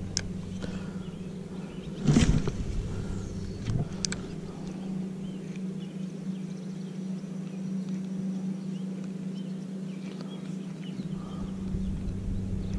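A steady low motor drone runs throughout. About two seconds in there is a short splash as the cast popper lure lands on the water, with a couple of lighter clicks or pops a second or two later.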